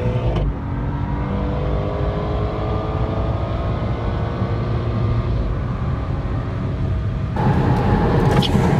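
BMW 335i xDrive's turbocharged inline-six accelerating hard, heard from inside the cabin, its engine note climbing steadily over road noise. About seven seconds in the sound turns suddenly louder and rougher, with more road and wind rush.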